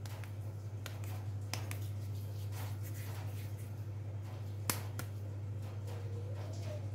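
A steady low hum runs under soft scattered clicks and pats from hands rolling and flattening balls of soft dough between the palms, with one sharper click about two-thirds through.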